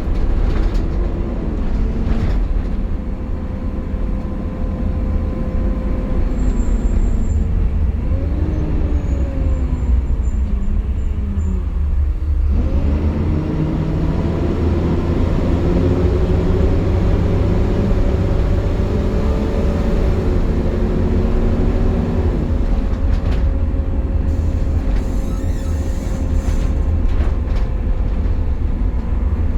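Optare Solo bus heard from on board: a deep, loud engine drone with a steady hoover-like whine that the bus makes when running hot. About eight seconds in, the engine note falls as the bus slows. A little past halfway it rises again as the bus pulls away.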